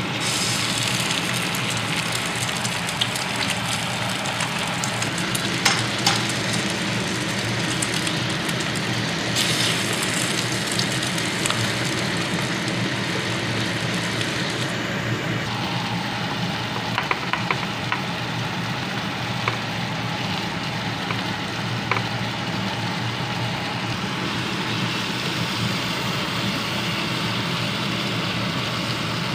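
Food sizzling and frying in a frying pan on an induction cooktop, with a spatula stirring and now and then clicking against the pan, over the cooker's steady low hum.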